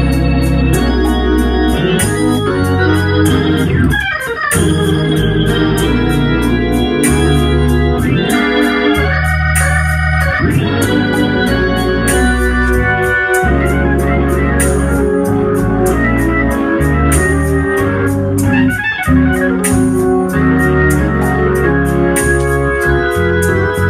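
Hammond organ played in sustained chords over a moving bass line, each new chord starting with a crisp click. The chords let up briefly about four seconds in and again near the end.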